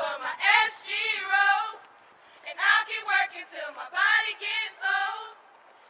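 Women's voices singing a chant together, in high wavering phrases with a short pause about two seconds in.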